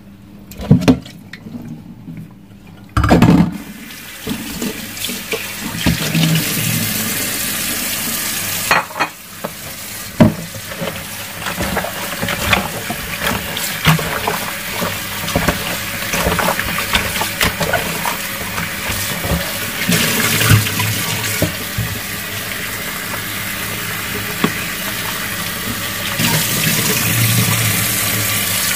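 A couple of sharp knocks in the first seconds, then tap water runs steadily into a sink, with scattered clatter as raw food is rinsed under it.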